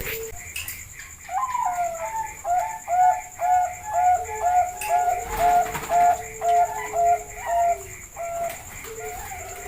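Zebra doves (Bangkok-type perkutut) cooing. One bird gives a run of short repeated coo notes at about two a second through the middle of the stretch, while a second dove's lower coos sound under it. A faint steady high tone runs behind them.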